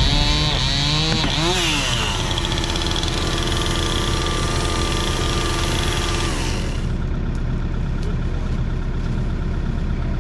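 Heavy-equipment engine running steadily, with the tail of a held music chord fading out underneath it over the first several seconds.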